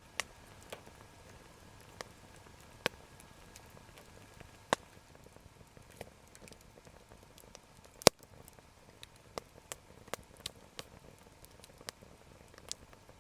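Wood campfire crackling: scattered sharp pops and snaps at irregular intervals, the loudest about eight seconds in, over a faint steady hiss.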